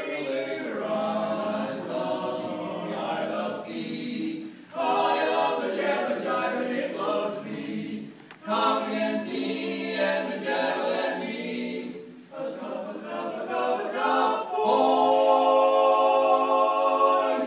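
A male barbershop quartet singing a cappella in close four-part harmony, in phrases with short breaks, then a long held chord near the end, the loudest part.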